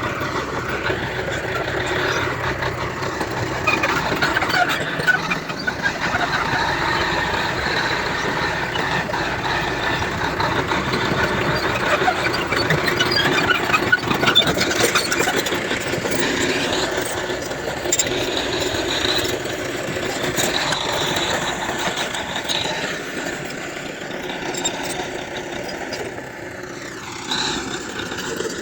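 Heavy diesel earthmoving machinery working, engines running steadily with scattered clicks, squeaks and rattles.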